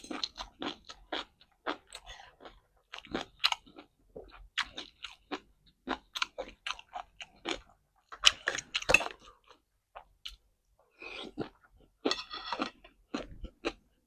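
A person chewing and crunching crisp food, close up, in a string of sharp, irregular crunches.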